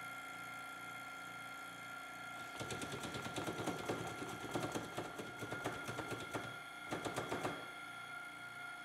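Fists knocking rapidly on a vacuum investing table, a quick series of knocks starting about two and a half seconds in and stopping about a second before the end, with a short break near the end, over the steady hum of the running vacuum pump. The knocking vibrates the table so that air bubbles rise out of the plaster investment under vacuum.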